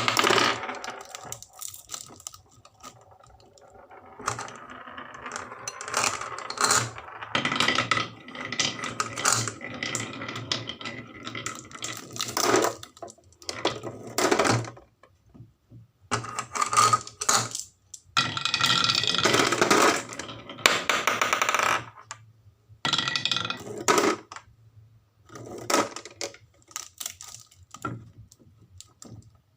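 Marbles rolling and clattering down a wooden marble run: runs of rattling and sharp clicks, broken by short quiet gaps.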